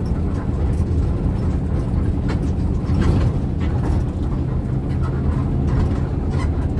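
Steady low rumble of an ALS intercity bus's engine and tyres on the road, heard from inside the cabin while it drives.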